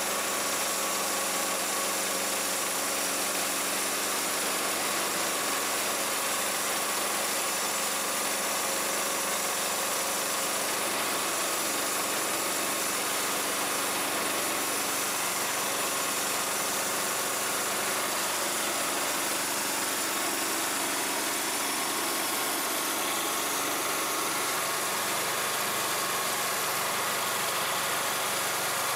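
Small petrol engine of a portable band sawmill running steadily under load while the band blade is pushed through a squared log, sawing off 2x boards.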